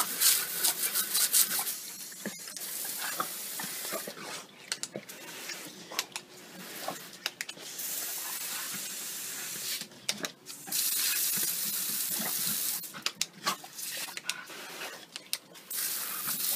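Jet of water from a garden hose spray nozzle hissing and spattering onto a tiled patio as a dog bites at the stream. The hiss comes in steady stretches that break off briefly several times.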